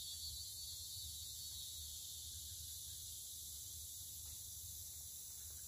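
Steady high-pitched drone of rainforest insects, with one higher strand fading away over the first couple of seconds, over a faint low rumble.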